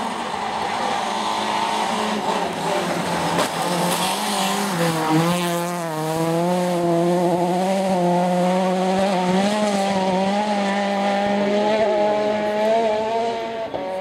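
Rally car engine at high revs on a gravel stage as the car approaches and passes, its pitch dipping and wavering as the driver works the throttle.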